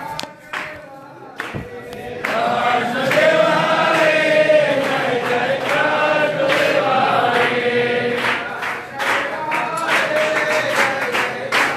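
Voices singing an aarti hymn together in chorus, holding long sung lines. A quick beat of sharp percussive strikes is heard at the very start and again in the last few seconds.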